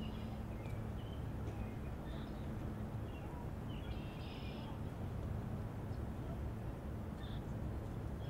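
Outdoor park ambience: small birds chirping in short scattered calls, most densely about four seconds in, over a steady low hum.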